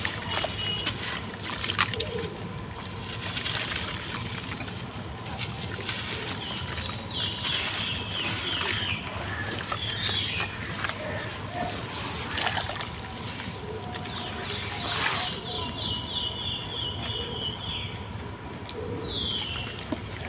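Gritty sand-cement blocks crumbling apart in water, with continual crackling, splashing and sloshing.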